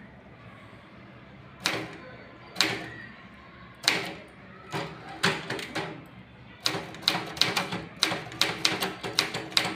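Keys of a Godrej Prime manual typewriter striking the platen as a word is typed. After a quiet start, single keystrokes come slowly and unevenly, then quicken into a run of about three to four strokes a second.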